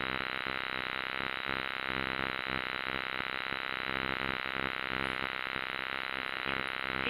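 A steady chorus of frogs calling, an even, rapid buzzing pulse that carries on without a break.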